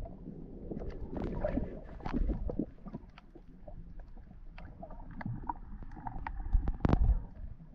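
Underwater sound picked up by a submerged camera: water moving around the camera makes a muffled low rumble. Scattered clicks and crackles run through it, with a louder knock about seven seconds in.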